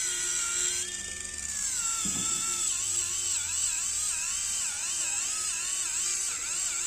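Electric callus remover's motor-driven abrasive roller whining as it is worked against the heel. The pitch drops about a second and a half in and then wavers up and down about twice a second, over a gritty hiss of dry, dead skin being ground off.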